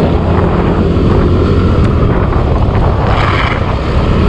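Wind buffeting hard on the microphone of a moving motor scooter, a loud steady rumble with the scooter's running noise underneath. A brief brighter rush comes about three seconds in.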